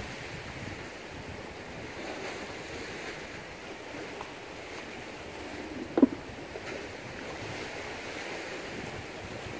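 Rough sea washing against the rocks below, a steady rush with wind buffeting the microphone. A single short knock about six seconds in.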